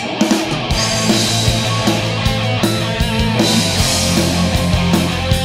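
Rock band playing the opening of a song live, with electric guitars, bass guitar and drums at full volume and a steady beat.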